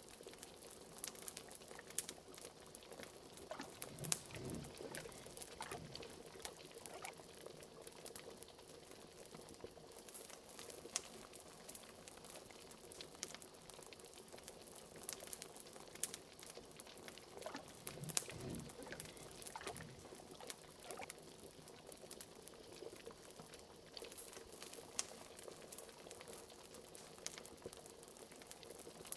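Wood fire crackling with frequent sharp pops, under a pot of liquid bubbling at a low boil. Twice the bubbling swells into a run of deeper glugs.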